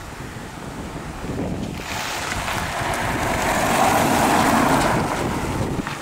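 A car driving past close by: a swell of tyre and engine noise that builds, peaks about four seconds in and fades as it moves off down the lane. Wind rumbles on the microphone throughout.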